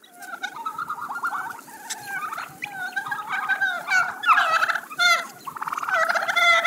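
Wild turkeys calling: a dense run of many overlapping, pulsed calls with no break.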